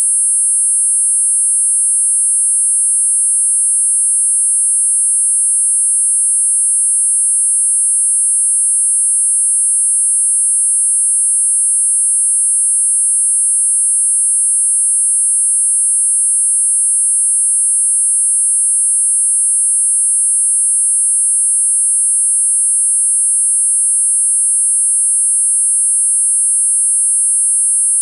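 Four steady, high-pitched sine tones at 8.5, 9, 10 and 10.5 kHz sounding together without any change: a synthesized multi-tone tinnitus masker.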